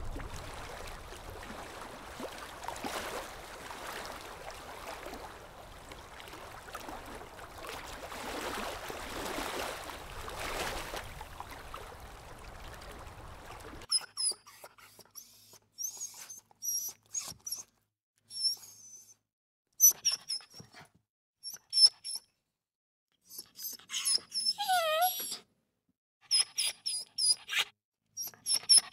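Water splashing and churning as a dog swims through it, then a puppy's high-pitched yips and whimpers in quick short bursts, with one longer falling whine near the end.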